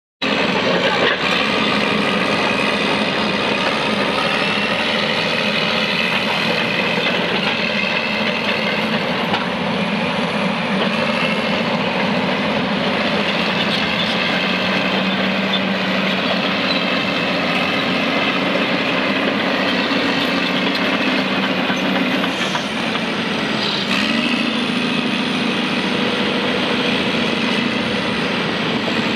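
Samsung SD250 crawler dozer's diesel engine running steadily under way. Its note dips briefly about two-thirds of the way through.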